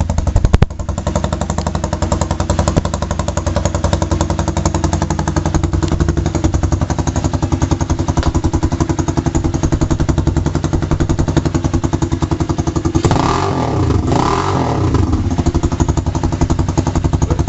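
Cleveland CycleWerks Misfit 250cc single-cylinder motorcycle engine idling steadily on fresh oil. There is a brief sharp knock just after the start, and about 13 seconds in the throttle is blipped: the engine note rises and falls back to idle.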